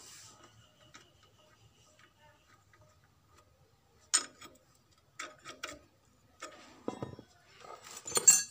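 A metal spanner clicking and clinking against the fittings of a diesel engine's fuel injection pump as a nut on it is worked by hand; the engine is not running. A few faint ticks at first, then a series of sharp clinks from about four seconds in, loudest near the end.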